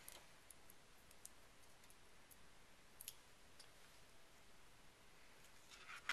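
Near silence with a few faint, scattered clicks and taps as small plastic buttons are handled and pressed onto a paper card; the clearest click comes about three seconds in.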